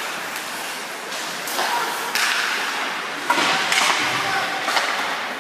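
Ice hockey game in an indoor rink: several sharp knocks of sticks and puck against the ice and boards over a steady wash of players' and spectators' voices.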